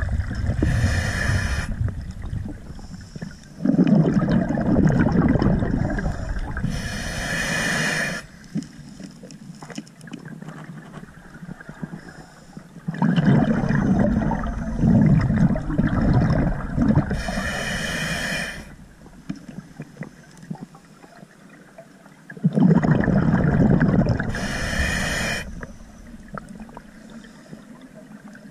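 Scuba diver breathing through a regulator underwater: bursts of exhaled bubbles rumbling for several seconds, each ending in a short hiss, with quieter pauses between, about three breaths roughly every nine seconds.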